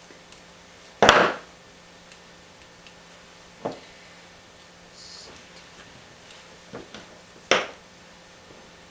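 Hand side cutters snipping the ends of the cord's wires: sharp snaps, a loud one about a second in and another near the end, with lighter clicks between.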